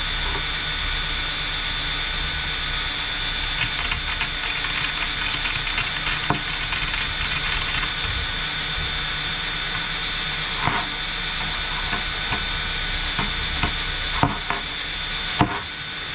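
Motor-driven wire brush running with a steady high whine, scrubbing a metal wastegate part clean, with a few sharp knocks of the part against the brush.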